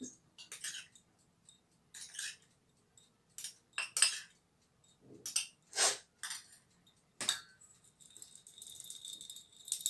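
Metal spoon clinking and tapping against a wire-mesh strainer and a steel mixing bowl as cocoa powder is spooned in, a series of separate light clinks. Near the end the strainer is shaken, giving a soft steady rattling hiss as the cocoa sifts through the mesh.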